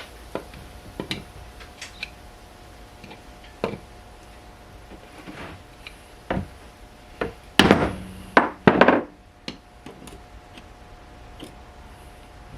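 Scattered knocks and clunks of tools and metal parts being handled, with a quick cluster of louder clanks about two-thirds of the way through.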